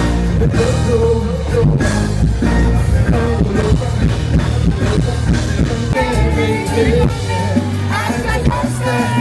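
Live band music with a heavy bass and a steady beat, and singing coming in from about six seconds in.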